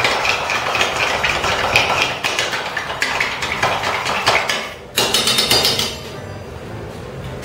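Long bar spoon stirring a Bloody Mary in a stainless steel mixing tin, the spoon clinking rapidly against the metal wall. The stirring stops with a sharper knock about five seconds in, and it is quieter after that.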